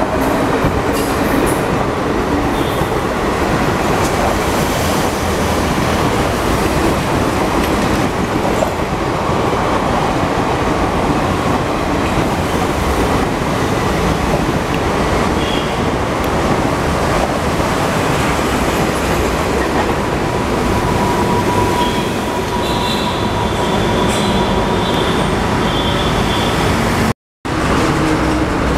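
Passenger coaches of an Indian Railways express passing close by, with a continuous rumble and clatter of wheels on rail and a few thin high-pitched wheel squeals late on. Near the end the sound cuts out briefly, and what follows is steady traffic noise.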